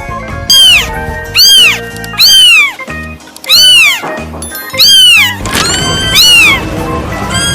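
Domestic cat meowing repeatedly, about six meows each rising then falling in pitch, over background music.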